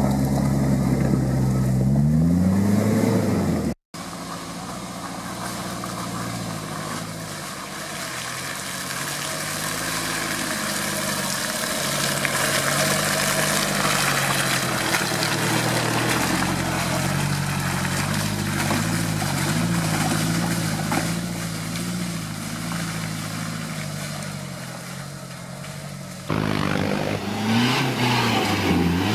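Toyota Land Cruiser 4x4 engine working under load in mud, its pitch rising and falling as the throttle is opened and eased. The sound breaks off for a moment about four seconds in and comes back louder, with quick revs, near the end.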